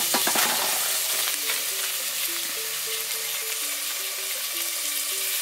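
Chopped tomatoes sizzling steadily as they fry in oil in an aluminium pot, with a few knocks at the very start. A simple background tune of short held notes plays quietly over it.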